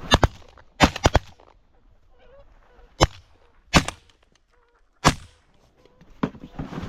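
Volley of shotgun fire from several hunters shooting at geese: about eight sharp shots, a rapid cluster in the first second or so, then single shots spaced about a second apart. Faint goose honking can be heard between the shots.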